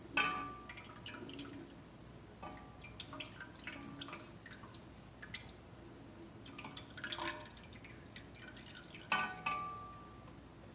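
A spoon gently stirring a warm milk and cream mixture as it starts to curdle with tartaric acid: soft liquid swishing and dripping, with the spoon now and then knocking against the pot with a short ring, loudest just after the start and about nine seconds in.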